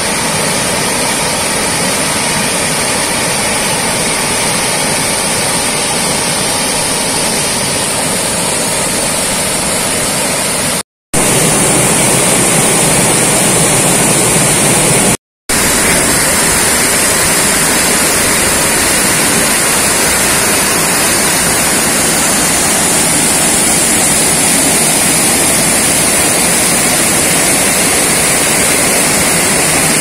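A waterfall on a small river, with water pouring over rock ledges into a pool, gives a loud, steady rushing. The sound breaks off for a moment twice, about 11 and 15 seconds in.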